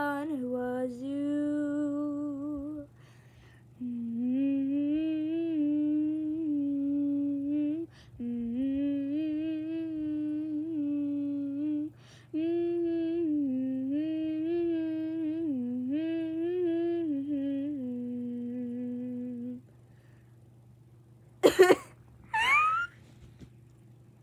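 A person humming a tune without words, in phrases of a few seconds separated by short pauses. Near the end come two short, loud vocal outbursts, the second rising sharply in pitch.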